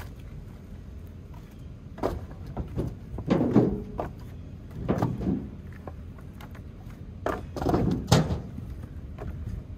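Split firewood pieces clunking and knocking against each other as they are set onto a stack, several irregular wooden knocks with the loudest clusters about halfway through and near the end.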